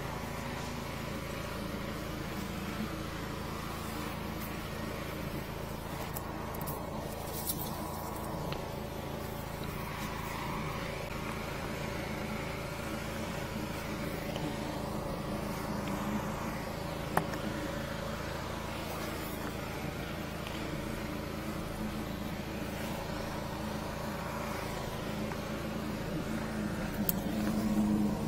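High-pressure sewer jetter's engine and pump running steadily while jetting a 300 mm drain line. A single sharp click comes about 17 seconds in, and the machine grows a little louder near the end.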